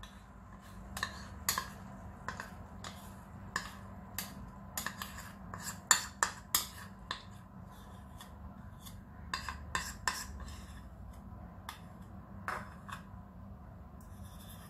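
Metal spoon scraping and clinking against a small bowl and saucepan as thick honey is spooned out: irregular sharp clinks and scrapes, several to a second at times.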